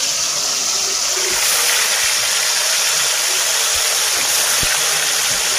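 Turmeric-and-salt-coated pieces of katla fish sizzling in hot oil in a kadai, a loud, steady frying hiss just after the fish goes into the oil.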